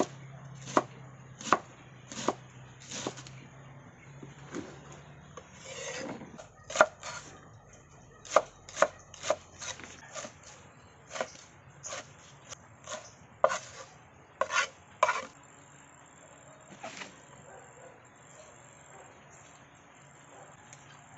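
Knife chopping taro stalks and leaves on a bamboo cutting board: sharp, irregular chops about one or two a second, each blade strike knocking on the wood. The chopping stops about fifteen seconds in.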